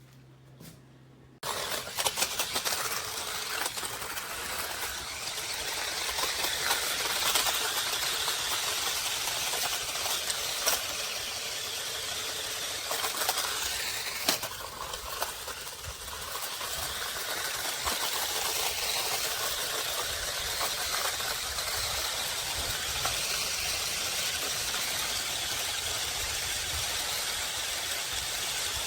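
Toy RC stunt car's small electric drive motors running, with a whirring hiss and rattling, clicking knocks from the car. It starts suddenly about a second and a half in and keeps going with shifting intensity.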